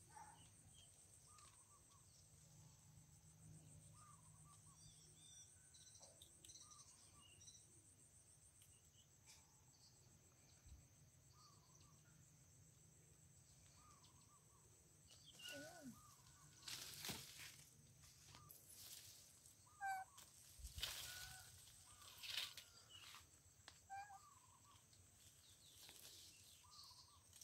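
Near silence: quiet outdoor ambience with faint scattered bird chirps and a steady high insect drone. About halfway through come several short noisy bursts.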